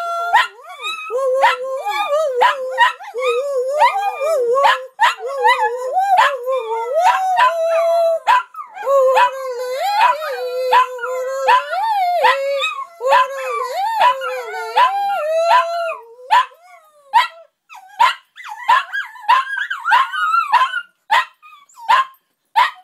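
Several small dogs howling together in long, wavering, yodel-like notes that slide up and down in pitch. About two-thirds of the way through, the howling breaks up into shorter yips and barks.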